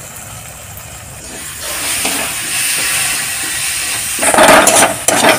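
Tomato-onion masala sizzling and hissing in an iron kadai on a gas burner as meat masala powder is fried into it and stirred. The sizzle grows louder about a second and a half in and again near the end, where the stirring is loudest.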